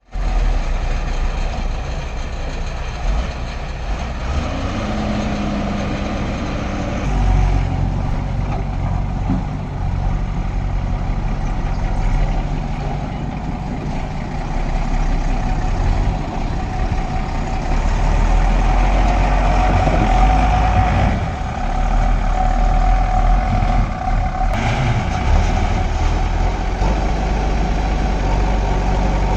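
Diesel engine of a JCB backhoe loader running as it works, its speed rising and falling, with a steady whine that comes up in the second half and fades near the end.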